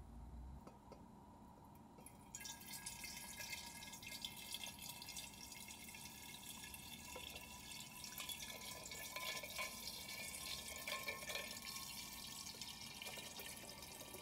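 Water pouring into a glass jar over sticks of binchotan charcoal, splashing and bubbling; it starts suddenly about two seconds in.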